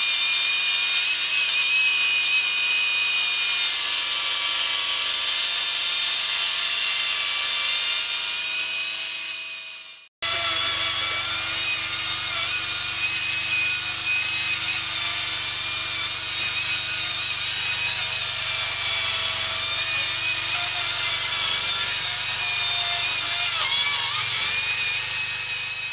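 Power saw running steadily at a high whine, cutting wood. The sound cuts out for an instant about ten seconds in and starts again.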